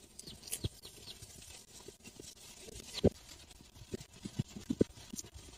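Soft, wet chewing and mouth sounds of a person eating a raw deer heart: scattered short, low knocks and clicks, with one sharper knock about three seconds in and a quick run of soft chews around four to five seconds.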